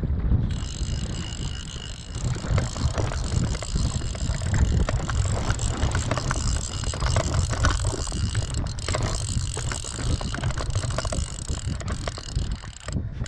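Fly reel's click-and-pawl drag ratcheting rapidly as a hooked salmon pulls line off it, over a low rumble.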